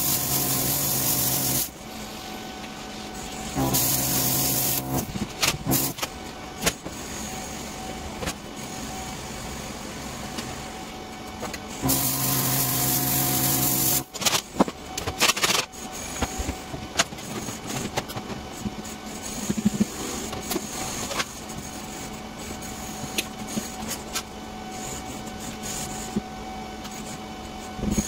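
MIG welding arc crackling and buzzing in three short welds: one at the start lasting under two seconds, another about four seconds in lasting just over a second, and a two-second weld about twelve seconds in. Between the welds come scattered sharp clicks and taps over a steady hum.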